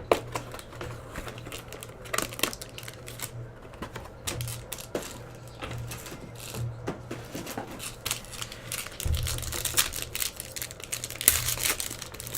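Tightly wrapped trading card pack being picked at and torn open by hand: irregular clicks, crinkles and tearing of the plastic wrapper, with cards being handled. A steady low hum runs underneath.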